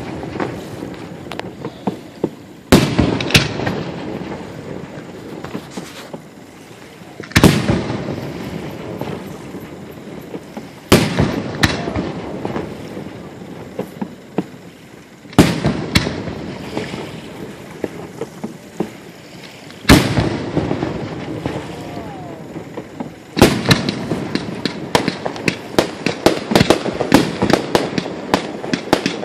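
A fireworks display: aerial shells bursting about every four seconds, each a sharp boom followed by a rolling rumble that fades out. In the last several seconds a quick run of crackling pops and reports follows.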